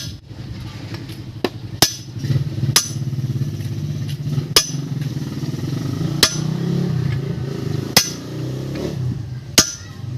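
Suzuki Multicab engine running to test a newly replaced rear wheel bearing, the low drone swelling a little from about two seconds in and easing near the end, with sharp clicks about every one and a half to two seconds. The bearing hum is gone.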